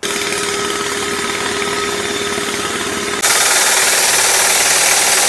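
Water-well drilling rig running at work: a steady engine din with a hum. About three seconds in it suddenly gets much louder, a dense, hissy, loud noise as the rig goes to full power.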